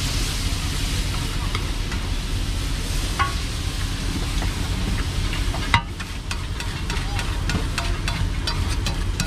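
Metal spatula scraping and clicking on a flat griddle (tawa) as an egg omelette fries and sizzles on it. A sharp knock comes a little after halfway, and the clicks of the spatula come several times a second after it.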